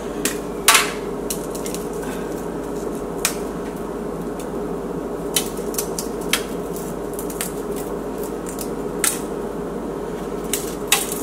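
A few scattered light clicks and knocks of kitchen handling, the loudest about a second in, over a steady low hum.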